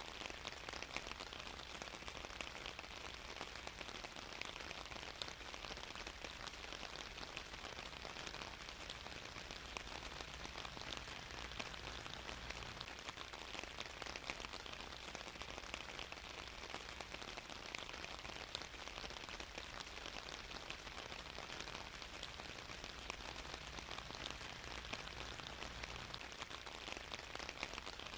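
Steady rain falling, with a dense patter of fine drops hitting a surface.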